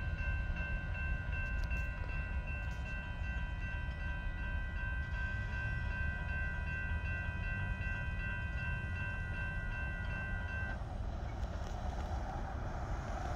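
Railroad grade-crossing warning bell ringing steadily over a low rumble, cutting off suddenly about eleven seconds in as the crossing gates rise. A car approaches near the end.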